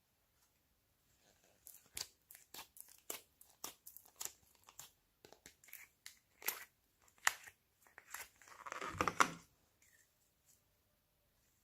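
Slime being squeezed and stretched by hand, giving a run of sticky pops and clicks, with a denser, longer crackle near the end.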